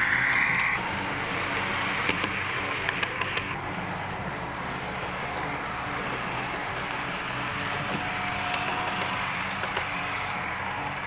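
OO gauge model diesel locomotive running, its DCC sound decoder playing a steady engine note, with a few sharp clicks from the wheels on the track. A high horn-like tone stops about a second in.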